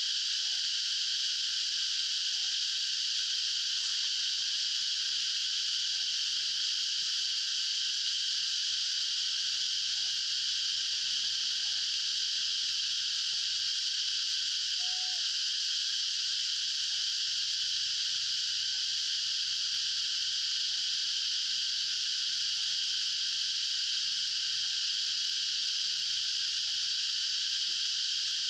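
Steady, unbroken high-pitched chorus of calling insects, even in level throughout.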